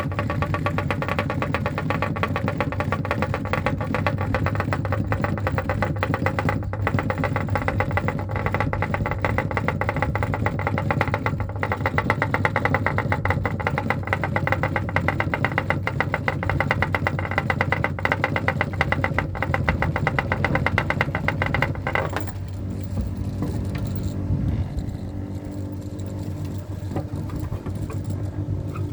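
Electric ceiling fan running with a steady motor hum and a fast, even flutter; about 22 seconds in the sound changes to a lower, slightly quieter hum.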